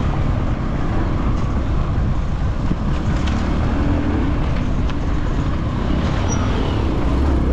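Off-road motorcycle being ridden along a rough dirt trail: steady engine and riding noise heard from the bike itself, with a few light clicks and knocks.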